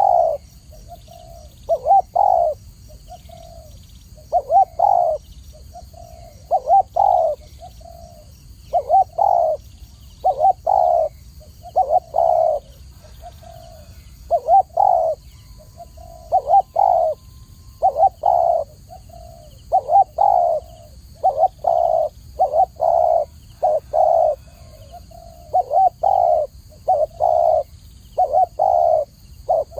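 Spotted dove cooing over and over, in short phrases of two or three low notes repeated about every second or two.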